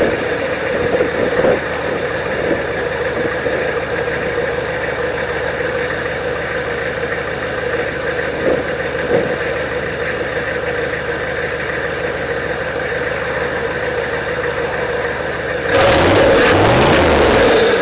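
Straight-piped 6.5 L Detroit Diesel turbo V8 running steadily. About 16 s in it suddenly gets louder as the revs climb and fall, and a high whistle falls in pitch near the end.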